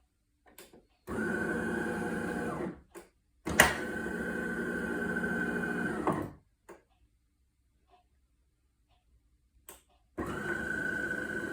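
DeLonghi Magnifica espresso machine buzzing in three bursts of a few seconds each, with a sharp click at the start of the second burst. This is the problem buzzing the owner hears at start-up and cool-down, before the red '!' warning light comes on.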